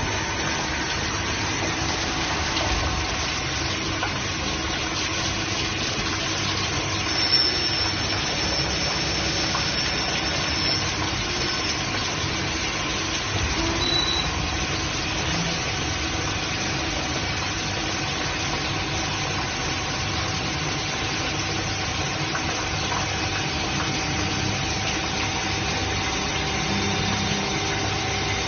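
CNC grinding machine grinding a screw, its wheel spinning under a spray of coolant: a steady mechanical hum and hiss, with one brief knock about seven seconds in.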